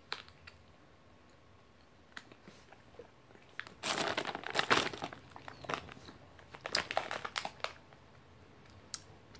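Plastic gummy-candy bag crinkling as it is handled, in bursts of rustling that start about four seconds in. Before that there are only a few faint clicks.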